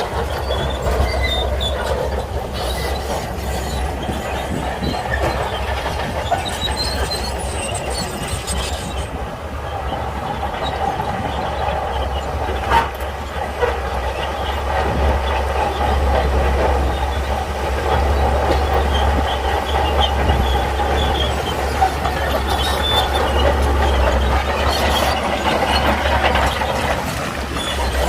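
Shantui crawler bulldozer working: the diesel engine running steadily with a low drone, over a constant metallic clatter and squeal from the steel tracks. One sharper clank about halfway through.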